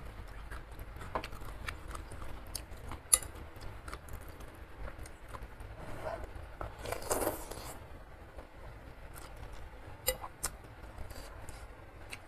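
Eating sounds: a metal fork and spoon clicking against a ceramic bowl as instant noodles are lifted, with a sharp click about three seconds in and a short slurp of noodles about seven seconds in.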